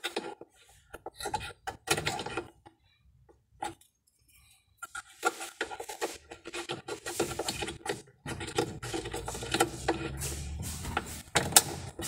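Plastic clicking and rubbing as a washing machine's thermo-actuator is worked by hand into its plastic mounting bracket. From about five seconds in a steady hum runs under the handling noise.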